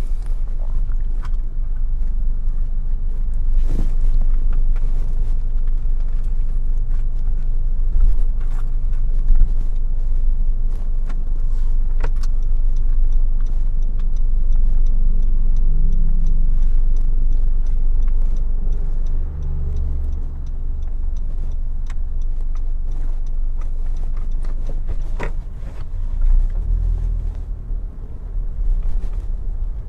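Steady low rumble of road and engine noise heard inside a moving car, with a few light clicks scattered through.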